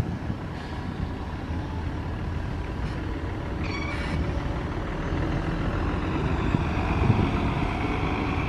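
City bus engine running at low speed as the bus drives past, with a short hiss of compressed air from its air brakes about four seconds in. The engine note rises slightly near the end as the bus pulls away.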